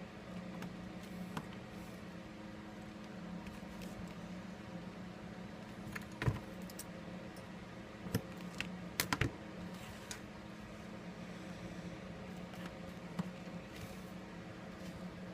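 Scattered small hard clicks and taps of tweezers and phone parts being handled on a workbench, with a quick cluster of clicks a little past the middle, over a steady low hum.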